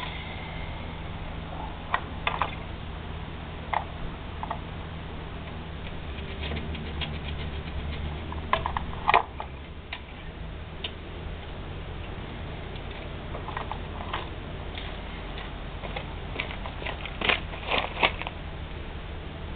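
Scattered small clicks, taps and rattles of cables and small metal parts being handled on a moped frame, including its carburetor, with the loudest cluster of knocks about nine seconds in and another near the end. A low steady hum runs underneath.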